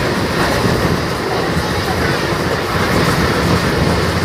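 Mumbai suburban local train running, with a steady, loud rumble and rattle heard from inside a moving carriage.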